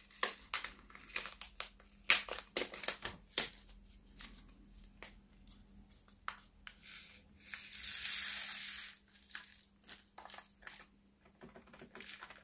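Hands handling plastic packets and a small clear plastic compartment box: a string of light sharp clicks and crinkles, then a rustling hiss lasting just over a second past the middle, then a few scattered clicks.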